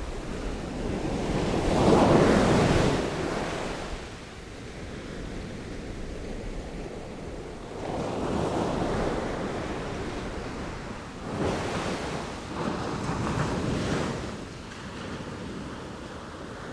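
Sea waves breaking and washing in, in surges every few seconds, the biggest wave about two seconds in and three smaller ones later on.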